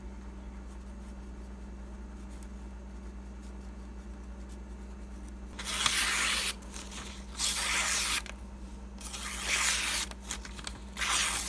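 Freshly sharpened knife blade slicing through a glossy paper advertising flyer, a paper-cutting test of the edge's sharpness. There are four separate cuts, each under a second, starting about halfway in.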